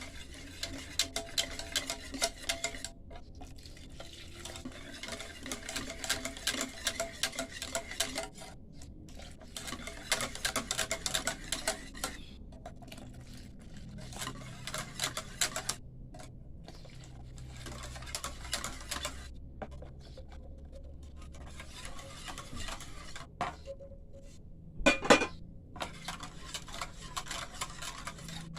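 A utensil stirring briskly in a bowl, clattering and scraping against its sides in runs of a few seconds with short pauses, as warm milk is mixed little by little into a sugar, egg and yogurt mixture. One louder knock on the bowl about 25 seconds in.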